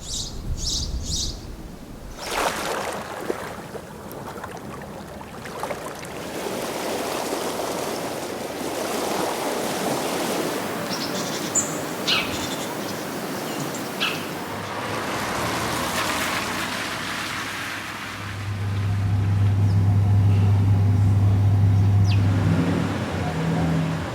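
Outdoor ambience recording: a few bird chirps near the start, then a steady wash of distant noise with scattered small clicks. About three-quarters through, an engine's low, steady hum swells to be the loudest sound, then fades near the end.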